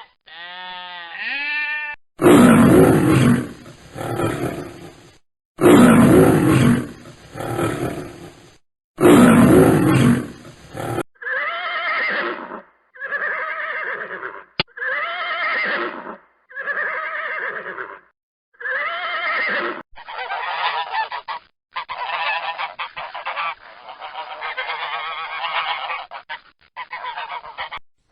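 Geese honking: three loud stretches of dense honking, then a run of separate honks about a second apart, then steadier honking near the end.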